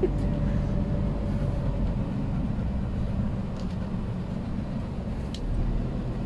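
Steady road and engine noise heard inside the cabin of a moving van, mostly low rumble. A faint steady tone fades out in the first two seconds, and a few faint ticks come later.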